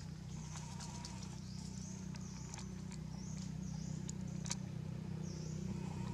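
Outdoor forest ambience: short, high, wavering calls come and go over a steady low hum, with a few sharp clicks, the loudest about four and a half seconds in.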